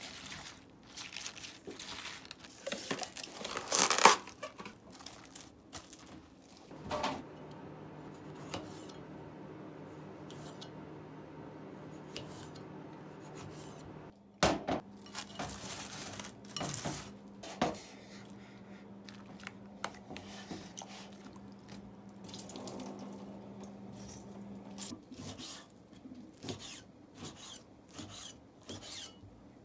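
Kitchen work sounds: dishes, pans and utensils clinking and knocking, with a steady low hum from a running appliance through the middle.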